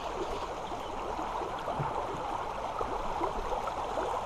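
Shallow creek water babbling steadily, a constant rush with many small quick gurgles.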